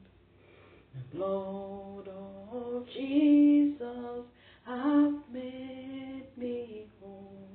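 A woman singing a slow worship song on her own, with no instruments, starting about a second in with long held notes.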